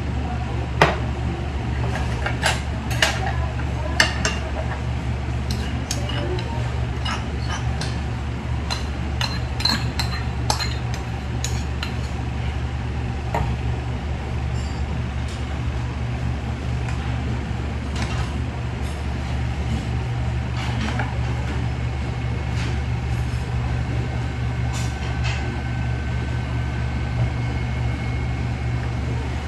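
Metal spoon and dishes clinking at a table: a plate set down, then the spoon knocking against the bowls, with many sharp clinks in the first half and only a few later. A steady low hum sits underneath.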